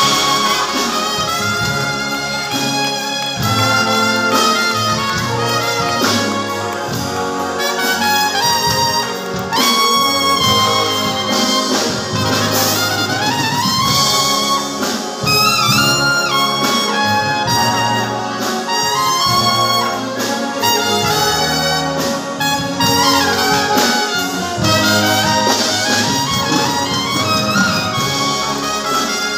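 Two trumpets playing a melodic duet over a full military concert band accompaniment, the trumpets carrying the tune above the band's horns and low brass.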